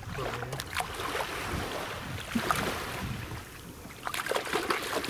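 Shallow harbour water splashing and sloshing as a fish is handled in it around a wading man's hands and legs, with a few brief sharper splashes.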